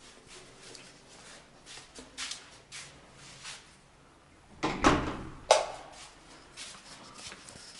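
Faint scattered clicks and knocks, with two louder sharp knocks about five seconds in.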